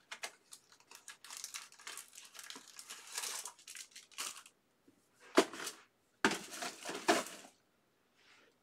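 Plastic wrapping being crinkled and crushed by hand, with irregular crackling, then a short sharp crunch a little past halfway and a longer crackling stretch soon after.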